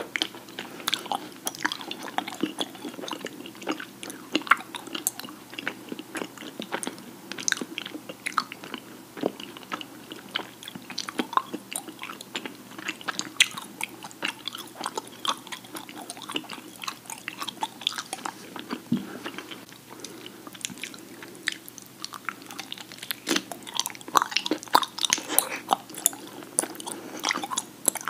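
Two people chewing raw honeycomb close to the microphone: wet, sticky mouth sounds with many small irregular clicks, busier near the end.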